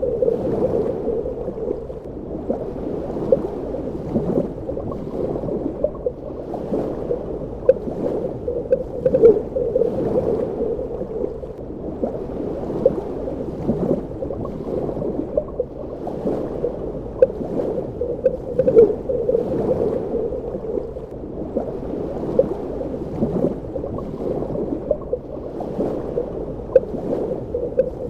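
Underwater ambience: muffled, low water movement with continual gurgling and small bubble pops.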